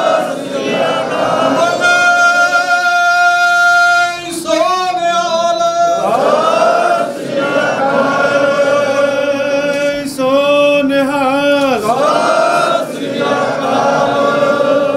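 Sikh congregation singing together in long, drawn-out held notes, with men's and women's voices in unison. The singing breaks briefly about four seconds in and again near the end.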